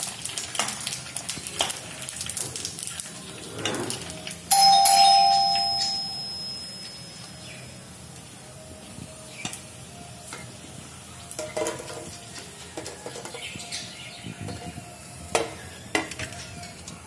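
Pani puri shells frying in hot oil in a kadai: sizzling with scattered pops and crackles. About four and a half seconds in, a loud chime rings once and fades away over a second or so.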